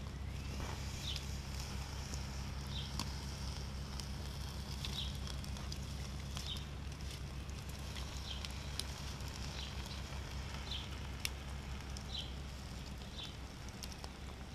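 Campfire of wood and coals crackling with scattered sharp pops, while a bird gives a short high chirp about once every second or two.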